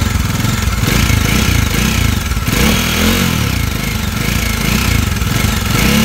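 Bajaj Dominar 400's single-cylinder engine running with a loud mechanical noise, which the owner blames on valve shims needing adjustment at the top of the engine.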